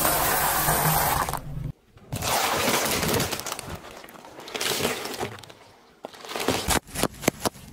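Dry pasta nests crunching and snapping under a car tyre, stopping abruptly. Then a car tyre presses into a carton of raw eggs, the shells crunching and cracking, with a quick run of sharp cracks near the end.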